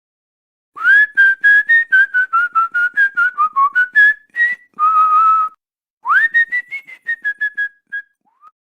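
A person whistling a tune: a quick run of short notes, one longer held note in the middle, then an upward slide into another run of short notes that stops shortly before the end.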